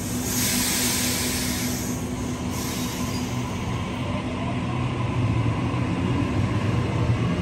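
Double-deck electric passenger train pulling out from a standstill: a burst of hiss at the start, then steady rumble of wheels and motors, growing a little louder with faint rising whine as it gathers speed.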